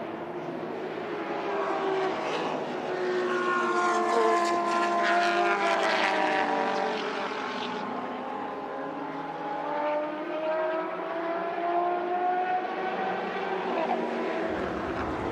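Turbocharged four-cylinder engine of a Ford Zakspeed Capri Turbo Group 5 race car at speed, its note rising and falling through the gears as it passes, loudest about four to seven seconds in.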